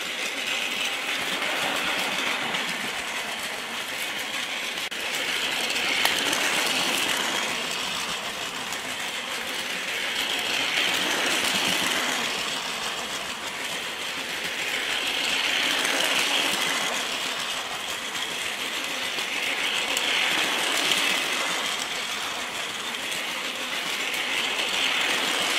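Small motorized Daiso toy train (a 201-series Chuo Line model) running on plastic track, its little motor whirring as its wheels clatter over the rail joints. The sound grows louder and softer about every five seconds as the train circles the loop, with an occasional sharp click.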